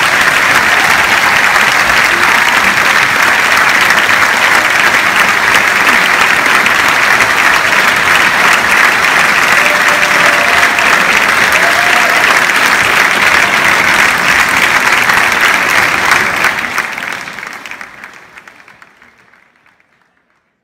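Theatre audience applauding steadily, then fading out over the last few seconds.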